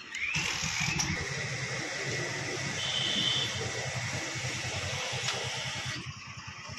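Fuel dispenser running as petrol is pumped through the nozzle into a motorcycle's tank, a steady rushing hum that stops about six seconds in.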